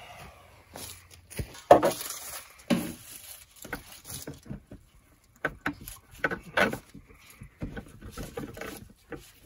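Handling noise of a garden hose and plastic hose fittings being moved and connected: irregular clicks, knocks and rustles.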